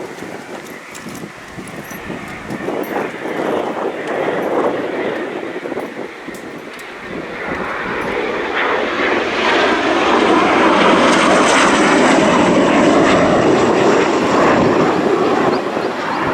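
Military jet aircraft engines passing close: a rushing jet noise that grows over the first half and holds loud, with a high turbine whine that falls slightly in pitch.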